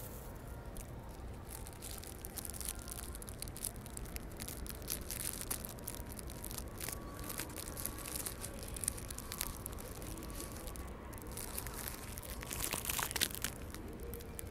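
Wind rumbling on a handheld phone's microphone, with scattered rustling and crackling as fabric brushes against it, thickest near the end.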